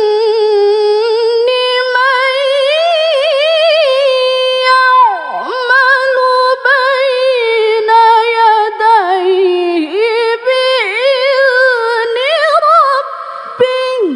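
A woman's voice reciting the Quran in the melodic tilawah style, drawing out long held notes with quick wavering ornaments and slides down and back up in pitch. The phrase breaks off at the very end, leaving a short echo.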